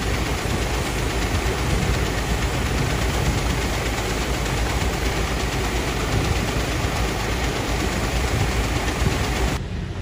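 Farm King grain auger running steadily as it carries wheat up into a steel grain bin: a constant low mechanical drone with an even rushing noise over it. Near the end the noise turns duller and lower.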